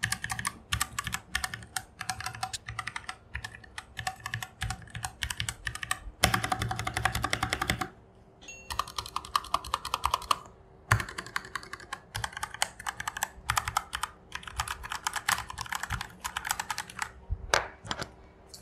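Keychron K4 mechanical keyboard being typed on close to the microphone: runs of fast keystroke clicks, with a dense burst of very rapid keystrokes about six seconds in lasting nearly two seconds, and short pauses between runs.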